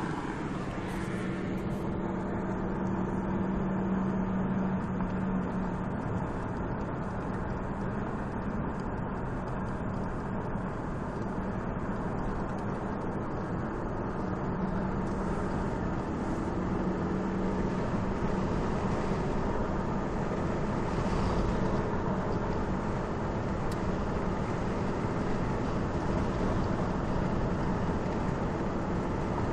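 Steady road noise of a car driving, heard from inside the cabin: engine hum and tyres on the pavement, with no sudden sounds.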